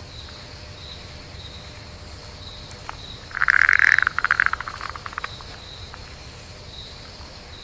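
A frog croaking once about three seconds in: one loud call, then a quick rattle of shorter pulses. Beneath it runs a steady low rush and a faint high trill.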